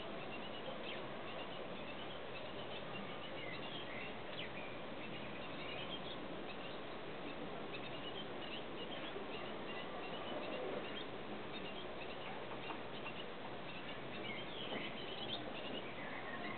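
Tits giving short, high calls now and then, in little clusters, over a steady background hiss.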